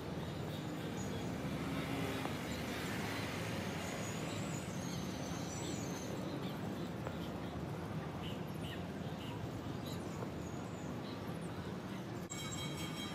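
Steady outdoor background noise with a low hum of distant traffic, and a few faint bird chirps about halfway through.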